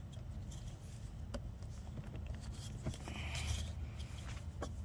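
A small screwdriver prying at a hose fitting: a few light clicks and a short scrape, over a low steady rumble.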